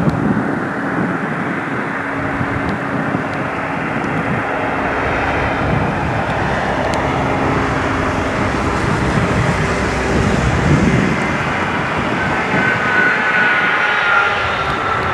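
Airbus A321neo's Pratt & Whitney geared turbofan engines as the jet lands and rolls out: a continuous loud jet noise, swelling briefly about ten seconds in, with a whine that falls slowly in pitch near the end.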